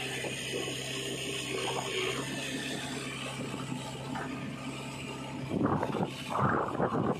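JCB 3DX backhoe loader's diesel engine running with a steady hum while the backhoe arm dumps soil and digs. From about five and a half seconds, loud rough rushing bursts cover it.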